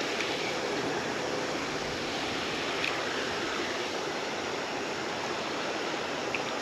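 Steady rush of flowing creek water, an even, unchanging noise with a couple of faint ticks.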